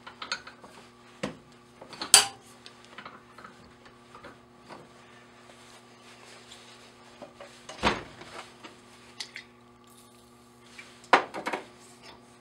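Small metal parts clinking and clicking as they are handled at a steel bench vise while a plug is reset for tapping. There are scattered light clicks, with sharper knocks about two seconds in, near eight seconds and near the end, over a faint steady hum.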